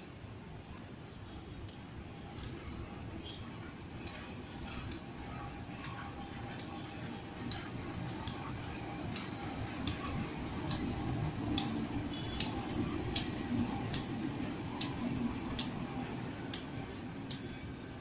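Train rolling slowly past: a regular run of sharp wheel clicks over rail joints, a little more than one a second, over the low rumble of a CC 201 (GE U18C) diesel-electric locomotive, which grows louder about halfway through as the locomotive goes by.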